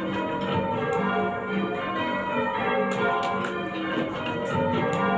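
Ring of six church bells at St John-on-the-Wall, a medium-weight 11 cwt ring in F cast in 1649 and 1706, ringing steadily in rounds at the end of a touch, just before they are stood. The bells are rung full-circle by hand and are noticeably out of tune.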